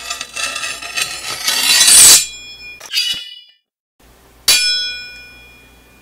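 Edited sound effects over an end card: a rising swell that cuts off suddenly, a short clink, then a sharp metallic hit that rings and fades.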